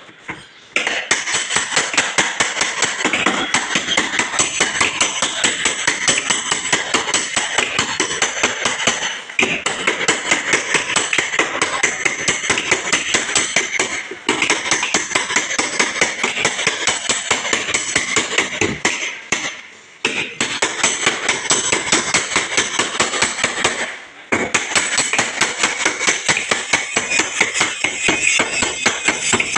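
Dent-repair hammer beating out damaged steel body panels on a Maruti Suzuki Baleno. The blows are rapid and even, a few a second, with brief pauses four times.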